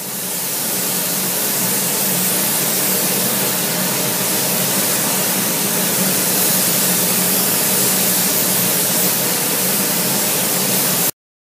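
Compressed-air spray gun hissing steadily as it sprays a spray-on chrome coating, with a faint low hum under it; it cuts off suddenly near the end.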